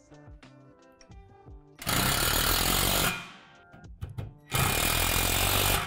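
Cordless power driver run twice in short bursts of a bit over a second each, driving the bolts that fasten a metal bracket and rail support to the deck, over soft background music.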